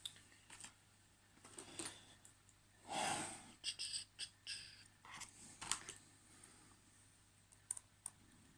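Small irregular clicks and scrapes from a padlock and lockpicking tools being handled, with a short rustle about three seconds in and a cluster of clicks after it.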